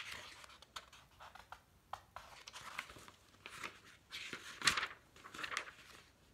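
Pages of a glossy picture book being handled and turned: a run of short paper rustles and flaps, the loudest about two thirds of the way through.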